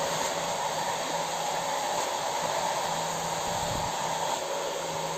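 Philips ThermoProtect hair dryer with a diffuser head running steadily, a continuous rush of blown air over a faint low motor hum, as it dries wet hair.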